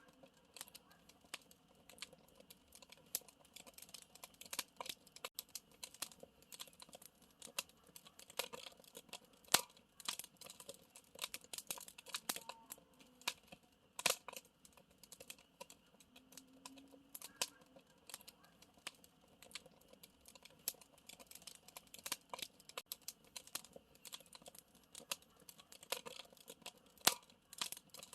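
Wood campfire crackling: a steady stream of irregular small snaps and pops over a faint hiss, with a few sharper pops standing out.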